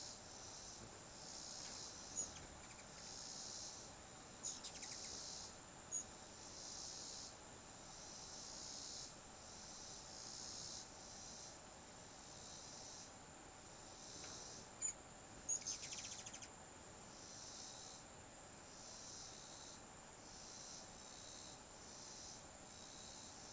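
High-pitched insect chorus pulsing about once a second, with a few short, sharp ruby-throated hummingbird chips cutting in, clustered near the start and again about two-thirds of the way through.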